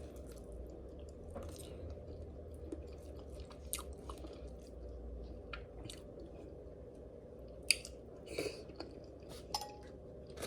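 A person chewing king crab close to the microphone, with scattered small wet mouth clicks and a sharper click about three-quarters of the way through.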